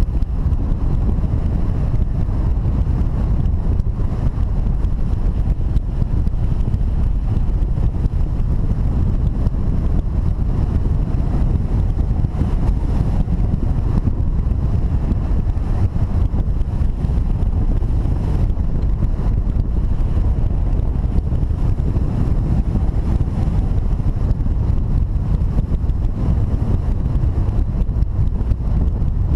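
Airflow rushing over the microphone of a camera mounted on a hang glider in flight: a steady, loud, low rumble of wind noise.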